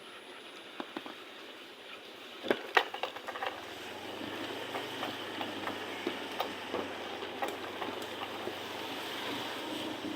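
Metal spatula clanking against a wok, loudest in a quick run of knocks about two and a half seconds in and then lighter taps, over a steady frying sizzle at a street-food stall.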